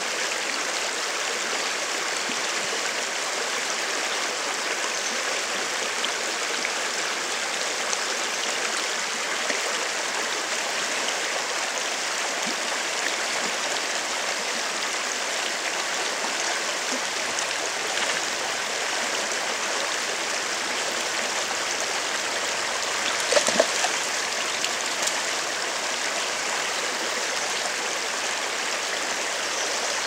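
Steady rushing of running water, like a nearby stream, with a brief cluster of louder short sounds about three-quarters of the way through.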